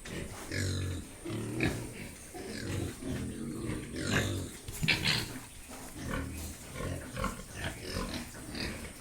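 Pigs grunting over and over in short low calls, with a couple of sharper, higher calls about halfway through.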